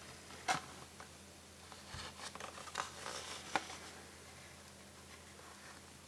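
Small phone-repair tools being handled: a few faint light clicks and scrapes, the sharpest about three and a half seconds in, over a steady low hum.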